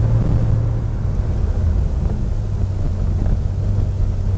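Air-cooled flat-six engine of a 1983 Porsche 911 SC running while driving at low speed, heard from inside the cabin. Its pitch drops about a second in and then holds steady.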